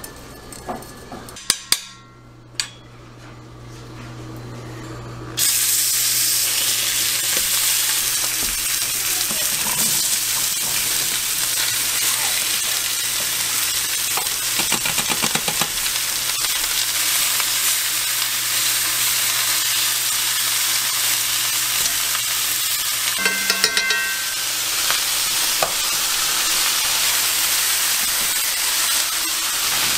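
Venison heart frying in a hot cast-iron skillet: a loud, steady sizzle that starts abruptly about five seconds in, after a few metal clinks. A short clatter of cookware comes about two-thirds of the way through.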